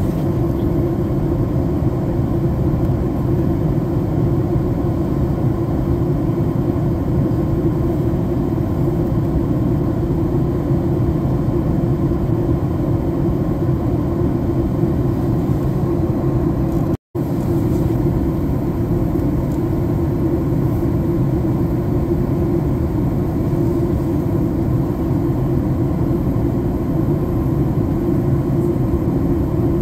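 Steady cabin noise of a jet airliner in flight: a constant low roar of engines and rushing air. It drops out for an instant a little over halfway through.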